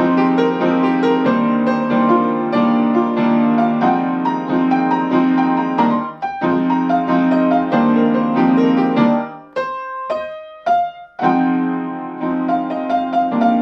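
Improvised piano playing: chords repeated in the low-middle register under a running line of higher notes, thinning to a few single notes about ten seconds in before the chords return.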